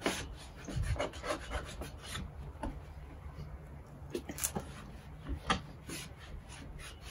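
Cloth rag rubbing and wiping across a glass door pane in short, irregular scrubbing strokes.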